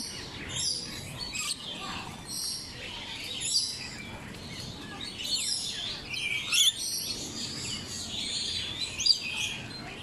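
Rainbow lorikeets calling: many short, high-pitched chirps and squawks overlapping and repeating throughout.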